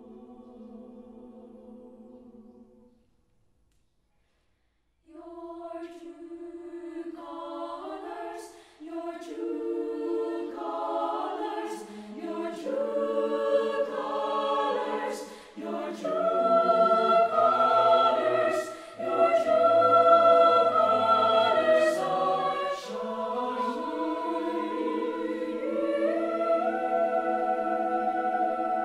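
Mixed choir of men and women singing a cappella: a held chord fades out, a pause of about two seconds, then the voices come back in and build, loudest about halfway through, to a full sustained chord.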